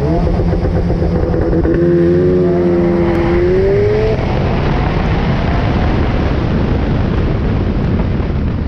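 Subaru WRX engine accelerating hard from a standing launch: the note climbs through first gear and breaks at a shift about four seconds in, then rises again in second gear under a heavy rush of wind and tyre noise.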